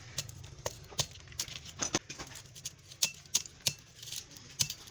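Irregular sharp metallic taps and clinks, about a dozen, some with a brief high ring: hand tools working on a washing machine motor to strip out its copper winding.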